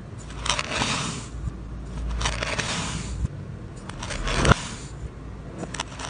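Knife slicing through a block of kinetic sand: three gritty, crunching strokes about a second each, the third ending in a sharp tap.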